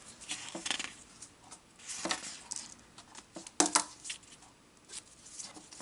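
Scattered light taps, clicks and paper rustles from handling scratch-off lottery tickets, with sharper clicks about two seconds and three and a half seconds in.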